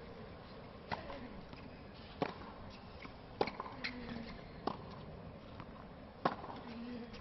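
Tennis ball struck back and forth by rackets in a hard-court rally: a serve about a second in, then sharp hits roughly every 1.2 seconds, with fainter ticks between, over the steady hum of a stadium crowd.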